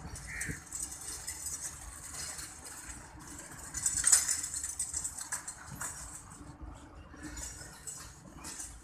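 Departing passenger train's coaches rolling away along the track: a steady noise of wheels on rails, with a louder rush about four seconds in.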